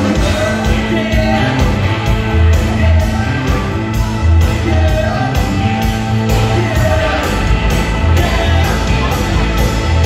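Loud live band music, with electric guitar over a steady drum beat and heavy bass.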